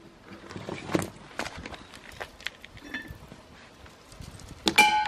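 Footsteps on concrete, then near the end a sharp metallic clank that rings briefly.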